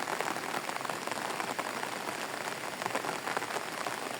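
Steady rain falling, a dense patter of many small drops with no pause.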